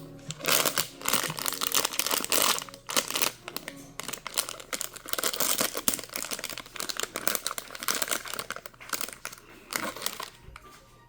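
Blind box packaging being handled and torn open: plastic or foil wrapping crinkling in irregular crackles, with tearing sounds.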